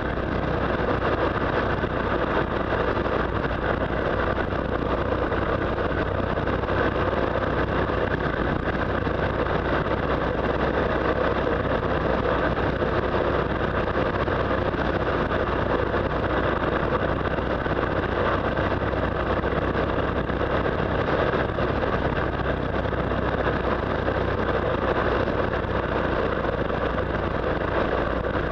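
Steady wind rush and engine drone of a motorcycle cruising at highway speed, with wind on the mount-camera's microphone.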